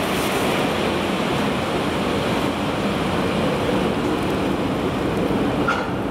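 VL10U electric locomotive with a freight train rolling slowly to a stop, a steady rushing noise, with a brief high squeak near the end.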